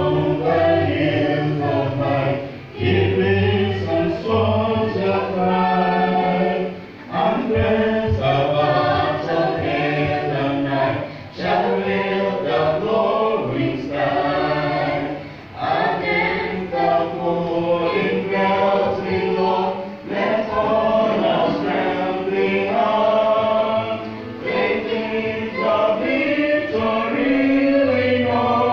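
A group of voices singing a gospel song in phrases of a few seconds, with short breaths between the lines.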